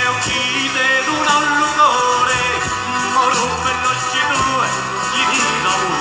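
Live folk band playing: accordion, guitars and double bass over a steady beat, with a wavering melody line on top.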